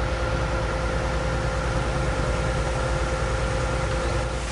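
An engine running steadily at a constant speed: a low drone with a faint steady whine above it.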